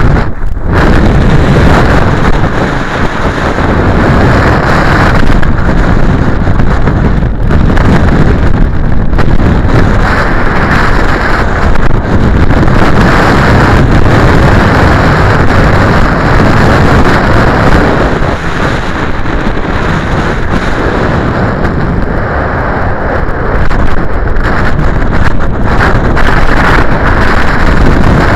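Strong wind buffeting the microphone: a loud, gusting rumble with brief lulls, covering everything else.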